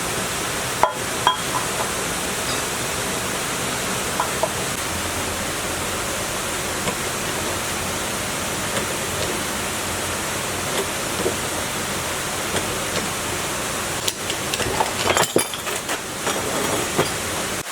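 A steady rushing noise, like a machine or air or water spray running, with scattered metallic clinks and knocks that grow busier near the end.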